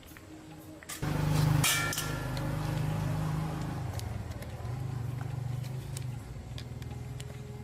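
A motor starts abruptly about a second in, then runs steadily with a low, even hum that shifts pitch slightly.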